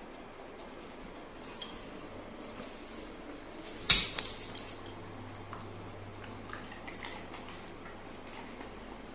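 Tableware clatter while eating: a sharp knock about four seconds in, with a second smaller knock just after, among faint scattered clicks over a steady hiss.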